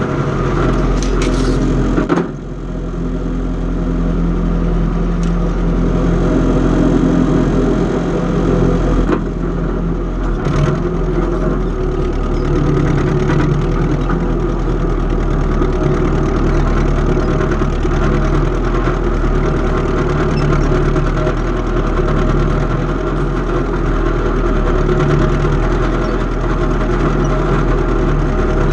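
Engine of antique farm machinery running steadily as it works the soil, with a brief dip in loudness about two seconds in.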